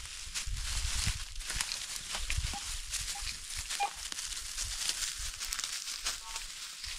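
Crackling rustle of dry leaf litter as a dog sniffs and moves about in it and a person steps through the leaves, with a few soft low bumps in the first half.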